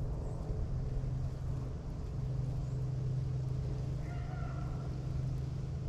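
Distant beagles baying on a rabbit chase: one drawn-out bay about four seconds in, over a steady low rumble.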